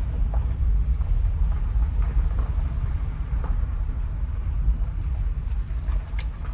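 Steady low rumble of a car heard from inside the cabin, at idle or creeping slowly, with a sharp click near the end.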